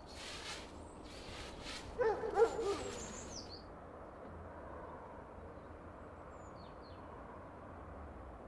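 Straw broom sweeping fallen leaves, several scraping strokes, with a short wavering animal cry about two seconds in. After that only faint outdoor background with a couple of small bird chirps.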